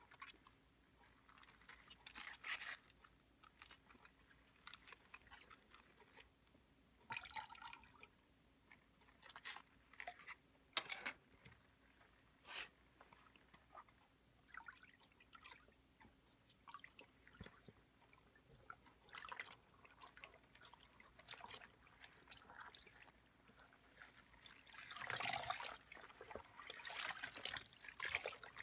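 Faint water splashing and dripping in a plastic basin as rubber-gloved hands stir the water and lift dyed cloth out to rinse it. Scattered short splashes, then a longer run of splashing and dripping near the end.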